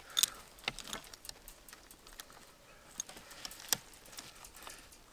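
Chain wire strainer being levered to tension high-tensile fencing wire: irregular metallic clicks of the ratchet and chain, the sharpest about three and three-quarter seconds in.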